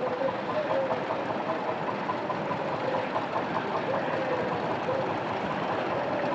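Vintage engine running steadily, with an even background noise.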